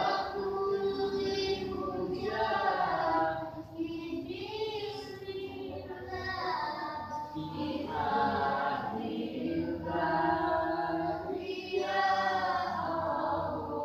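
A group of voices singing together in long, held notes, phrase after phrase with short breaks between.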